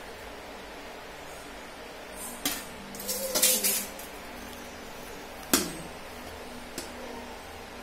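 Stainless-steel serving spoon clinking and scraping against steel vessels and a steel plate as rice is served. There are a few scattered clinks, the sharpest a little over five seconds in with a short ring, over a steady low background hum.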